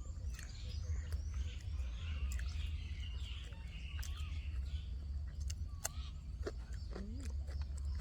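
Small birds chirping and twittering outdoors, busiest in the first half, with scattered clicks over a steady low rumble.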